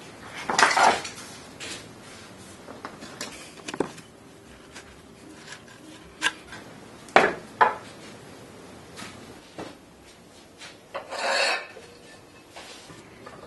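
Cast-metal hydraulic-tile mould and press parts being handled: a scatter of sharp metallic knocks and clinks, with a short scrape soon after the start and another near the end.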